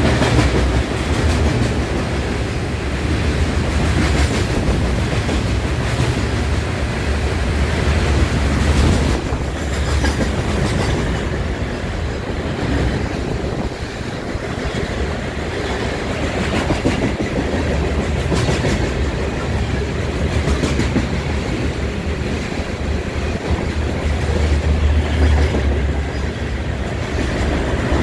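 CSX freight train's open-top hopper cars passing at speed: a steady low rumble of steel wheels on the rails, with scattered clicks.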